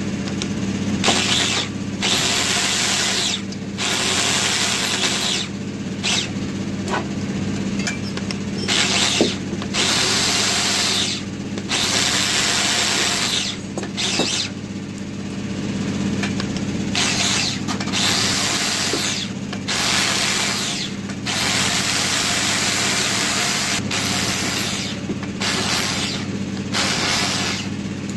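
Handheld electric drill turning a cutter in the valve seat bores of a cylinder head. It runs in more than a dozen bursts of one to two seconds with short pauses, and its whine rises as it spins up each time. A steady low hum runs underneath.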